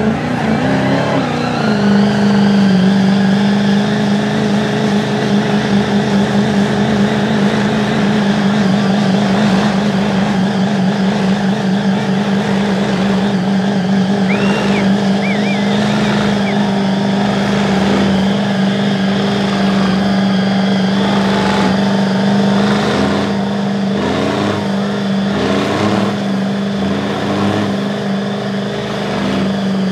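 Engines of two lifted mud trucks, an ex-military six-wheel cargo truck and a big pickup, held at full throttle in a bumper-to-bumper tug of war, with tyres spinning on concrete. One engine note climbs at the start and then holds steady and high. Near the end, short rising revs come about once a second.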